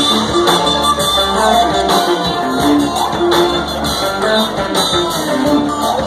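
Live band playing: melodic electric guitar over keyboards and drums with steady cymbal hits, recorded from the audience.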